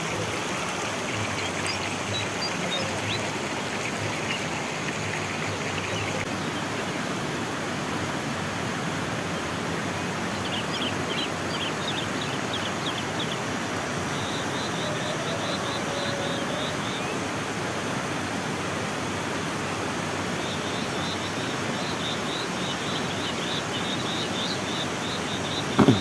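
Steady rush of a flowing stream, with birds chirping over it in runs of quick, repeated high notes. A short thump near the end.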